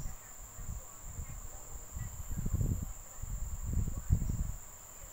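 Soft, irregular rubbing and handling noise from hands working a fine crochet hook and cotton thread close to the microphone, loudest about two and a half and four seconds in. A steady high-pitched hiss runs under it.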